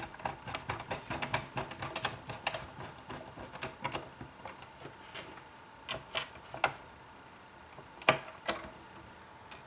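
Irregular small clicks and taps of hands and a screwdriver working on the plastic underside of a wireless router case during reassembly. A quick run of clicks comes in the first few seconds, then a few sharper taps spaced apart, the loudest about eight seconds in.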